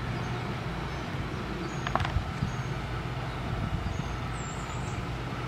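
Outdoor ambience: a steady low hum with a short click about two seconds in.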